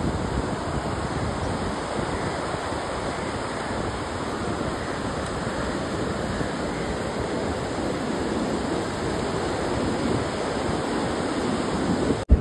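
Rough sea surf breaking and washing steadily up the beach, with wind rumbling on the microphone.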